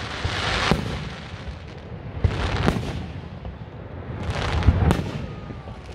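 Aerial fireworks shells bursting: deep booms about every two seconds, some in quick pairs, each trailing off in a low rumble.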